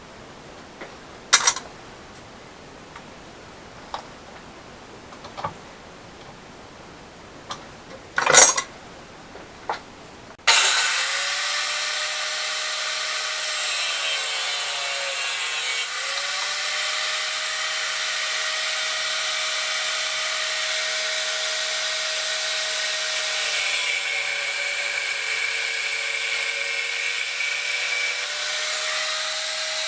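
A few scattered knocks, then, about ten seconds in, an electric power tool starts up abruptly and runs steadily with a whining, hissing sound, its pitch dipping briefly a few times as it is loaded against the work.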